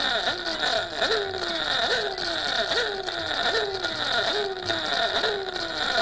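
A rapid, repeating siren-like wail, each cycle rising sharply and then gliding down, about two a second, over a steady high-pitched tone. It stands in for a smoke alarm going off.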